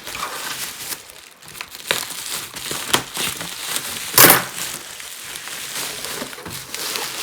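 Packaging crinkling and rustling as it is handled, in short irregular bursts, with one loud crunch about four seconds in.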